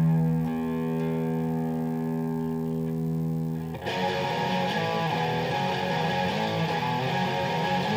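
Fender American Deluxe Ash Stratocaster electric guitar played through a Line 6 Spider Jam amp with a little gain added. A chord rings and slowly fades, then about four seconds in he starts strumming changing chords in a steady rhythm.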